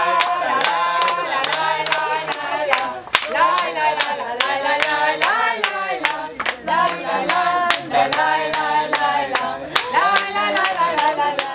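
A group of people singing together and clapping their hands in a steady rhythm.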